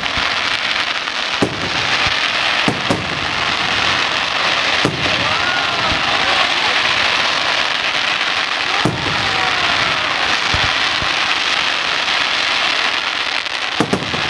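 Fireworks display: a steady dense crackling from ground fountains and aerial effects, with several sharp bangs from shell bursts spread through it.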